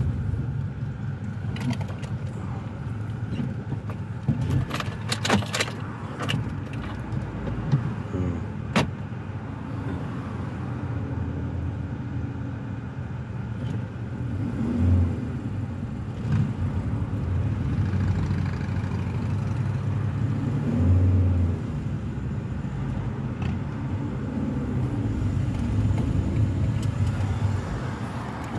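Engine and road noise inside a car's cabin: a steady low rumble while the car drives slowly in traffic. A few sharp clicks and rattles come in the first nine seconds.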